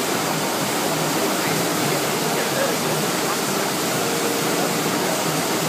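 Steady rush of water from an artificial standing-wave surf machine, a thin sheet of water pumped up a padded slope.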